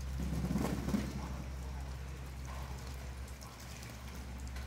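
Pigeons bathing in a shallow puddle, splashing and flapping their wings in the water. A busy flurry of splashing comes about half a second to a second in, followed by lighter, scattered splashes.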